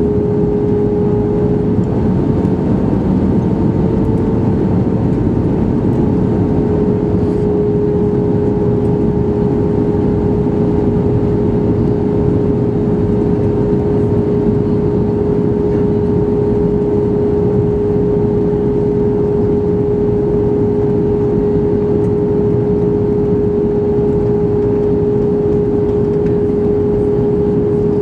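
Airbus A320 cabin noise from a window seat by the wing, during the descent: the jet engines and the airflow past the fuselage make a steady rush with a constant humming tone. Nothing changes throughout.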